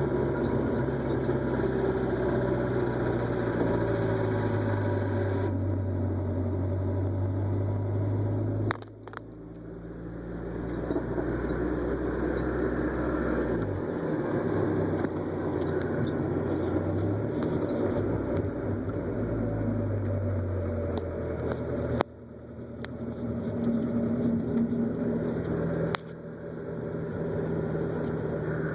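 Mazda Miata's four-cylinder engine running, its pitch and level dropping suddenly three times and building back up after each. The odd noise the owner is showing is not identified.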